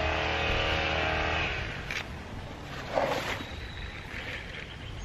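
An engine running at a steady pitch, which fades out a little under two seconds in. About three seconds in comes a short, louder noise.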